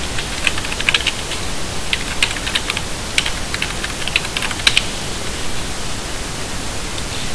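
Typing on a computer keyboard: an uneven run of key clicks over a steady hiss, stopping about five seconds in.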